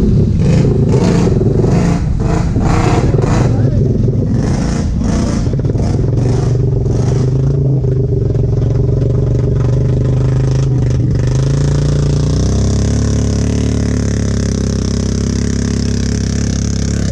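ATV engine revving hard in pulses, then holding a steady note. About twelve seconds in it settles to a slightly lower, even pitch.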